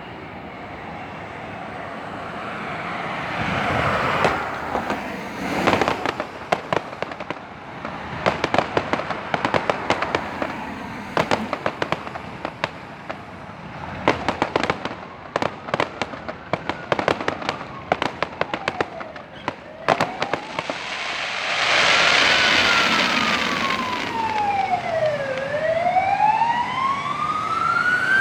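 Fireworks going off in quick crackling bursts with whooshing swells. About two-thirds of the way through, a wailing siren rising and falling every few seconds grows louder over them.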